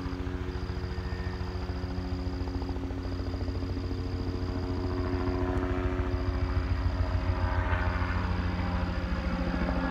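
Crop-dusting helicopter approaching, its rotor beating fast and steady over the engine's hum, growing louder to a peak about seven seconds in.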